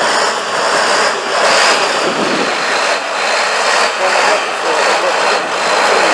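Tatra 815 trial truck's diesel engine working under load as the truck crawls through deep mud, a loud, steady engine noise.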